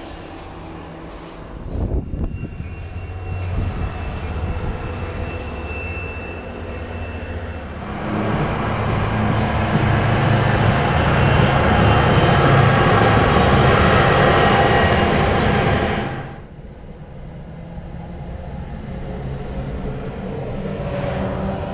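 NJ Transit commuter trains passing in a series of short clips: a steady rumble of locomotive engine and wheels on rails. The sound changes abruptly at each cut and is loudest in the middle clip.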